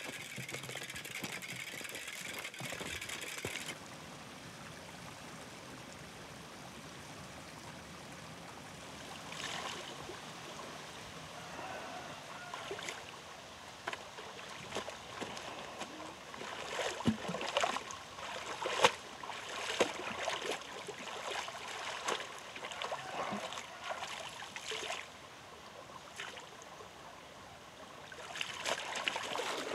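Shallow stream running over rocks, with irregular splashes and wet slaps as laundry is washed in the water; the splashing is busiest about halfway through. A steady hiss comes before the cut to the river.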